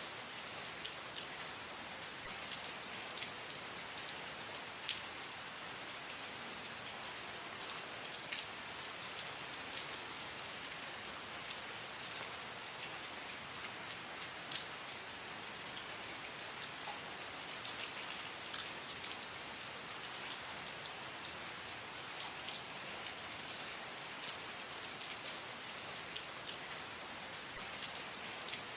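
Steady rain falling, an even hiss with many small drops ticking on a surface scattered throughout.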